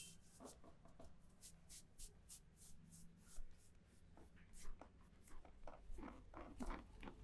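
Hands rubbing and scratching through hair and scalp during a head massage: a quick run of faint, short brushing strokes, several a second.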